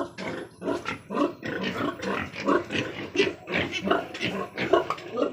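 Young pigs grunting in a pen: a rapid run of short calls, several a second.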